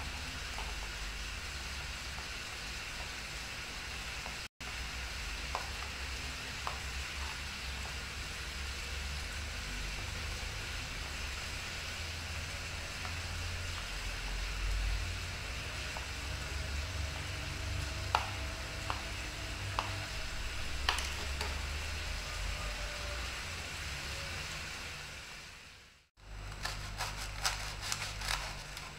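A steady hiss with a low rumble, over which a knife cutting a block of cheese on a wooden cutting board gives a few light taps. Near the end, after a short break, a knife sawing through a crusty bread roll on the board gives a quick run of crackling clicks.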